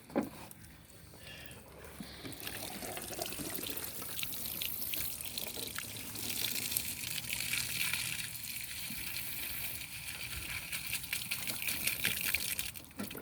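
Water pouring and splashing out of a plastic milk jug, starting about two seconds in and running on, as the jug is emptied to recover the bullet.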